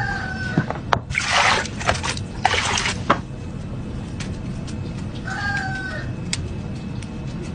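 Water splashing into a glass bowl in two short bursts, with a few light knocks of a cleaver on a wooden chopping board. Two brief squeaks, one at the start and one about five seconds in.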